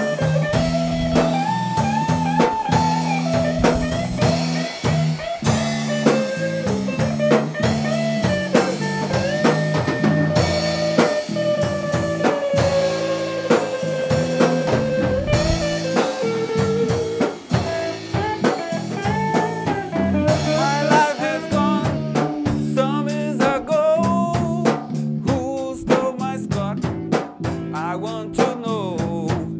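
A live band playing a blues-rock instrumental passage: a guitar lead of long held notes that bend and slide in pitch, over drum kit, bass and rhythm chords. In the last third the lead turns to shorter, wavering notes.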